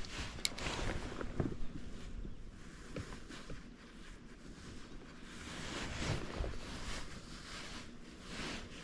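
Wind buffeting the microphone and water washing around a fishing boat, with a few scattered light knocks and one brief high squeak about half a second in.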